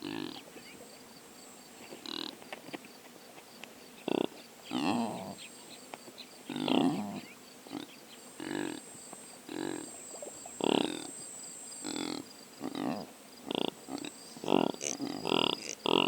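Impalas calling: a string of short, rough grunting calls about a second apart, coming faster and overlapping near the end. Under them run a faint steady high hum and a fast ticking.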